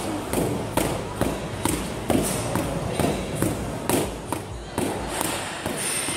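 Boxing gloves punching focus mitts: a steady series of sharp smacks, about two a second.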